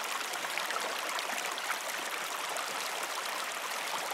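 Shallow river running over stones: a steady rush of flowing water with small bubbling flecks.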